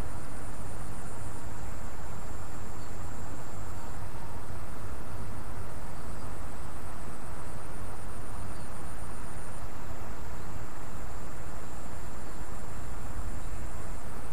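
Steady rush of water flowing in a small irrigation ditch where two channels meet, with a thin, continuous high-pitched insect trill over it.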